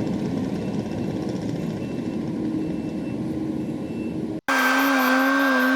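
Heavy equipment's engine running steadily, with a faint backup alarm beeping about twice a second. About four and a half seconds in, it cuts abruptly to the compaction roller's engine played back sped up, a higher, steady drone that wavers slightly in pitch.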